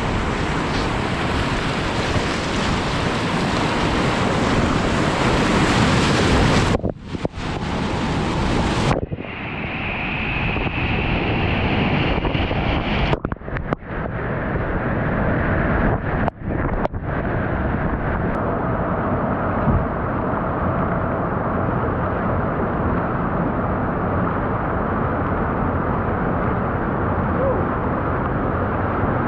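Rushing whitewater of a river rapid heard close up from a kayak, loud and steady, with wind buffeting on the microphone. The sound breaks off and changes abruptly a few times at edits between shots.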